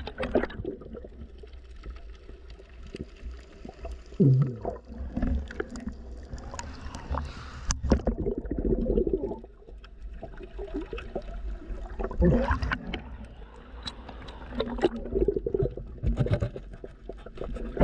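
Underwater sound of a diver's breathing bubbles: a low steady rumble of water with bubbling, gurgling bursts every few seconds.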